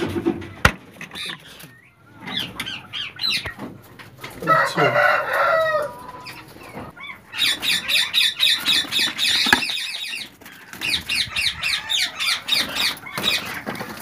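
Indian ringneck parakeets calling: a harsh squawk about four seconds in, then long runs of rapid, repeated chattering chirps. There is a sharp knock near the start and a click midway.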